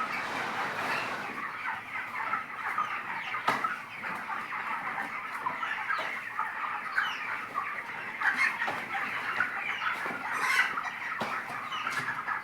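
A flock of 25-day-old broiler chickens, many birds chirping and clucking at once in a steady din, with a few sharp clicks.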